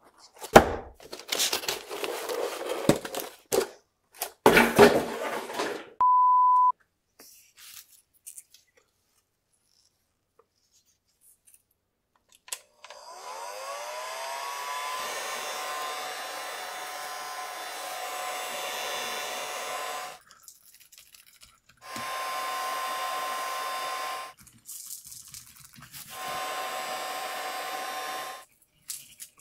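Handheld electric heat gun blowing: its fan spins up with a rising whine about halfway in, runs steadily with a high whine for several seconds, then is switched off and back on twice for shorter runs. Earlier there are two short bursts of rustling and a brief steady beep.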